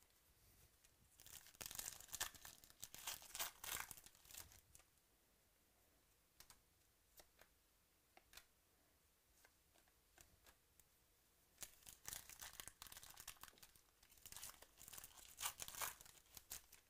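Foil wrappers of 2017 Chronicles Baseball card packs being torn open and crinkled by hand, in two spells of crackly tearing about ten seconds apart. Between them come a few soft clicks as the cards are handled.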